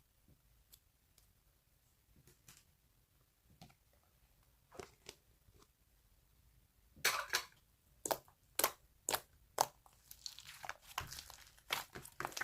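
Slime being kneaded and pressed by hand: a few faint clicks at first, then from about halfway a run of loud crunchy crackles, roughly two a second, growing denser near the end.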